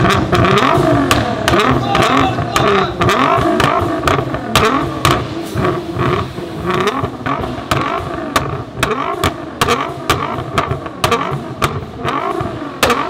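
Tuned supercar engine revving in repeated blips, its pitch rising and falling, with many sharp exhaust pops and bangs crackling between the revs.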